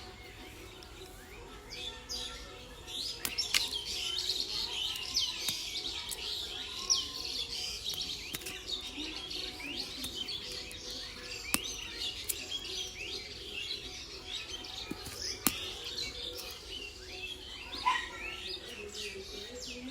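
Many small birds chirping and twittering together in a dense, continuous chorus that swells about two seconds in, with a few sharp clicks scattered through it.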